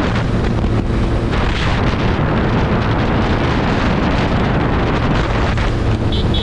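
Heavy wind buffeting on the microphone over a motorcycle engine running steadily at highway speed.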